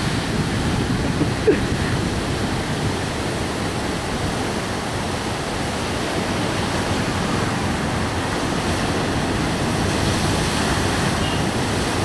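Surf on a rough sea breaking and washing up the shore: a steady, dense rush of water. One brief knock about a second and a half in.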